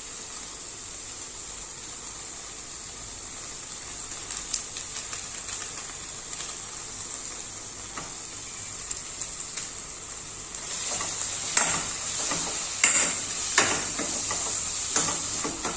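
Onion and tomato masala frying in oil in a pan with a steady sizzle. From about two-thirds of the way through, a spatula scrapes and knocks against the pan in irregular strokes as the added masala powder is stirred in.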